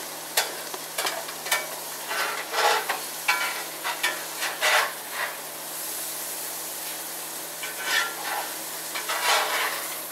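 Mushrooms sizzling in hot grease in a cast iron pan while a spoon scrapes and scoops them out, with irregular scrapes and clinks against the pan.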